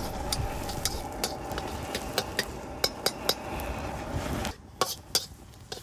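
Minced garlic sizzling in hot oil in a wok, with a metal spatula clinking and scraping against the wok as it is stirred. The steady sizzle drops away sharply about four and a half seconds in.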